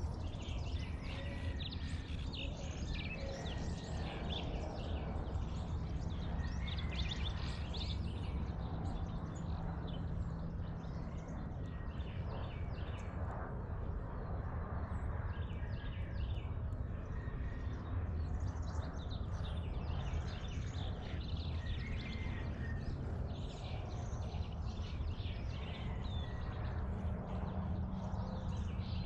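Dawn chorus of many birds chirping and calling over one another, over a steady low rumble.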